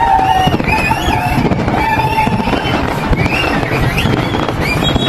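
A large fireworks display going off in a continuous run of bangs and crackle, with a deep rumble under it and some long wavering higher tones over it.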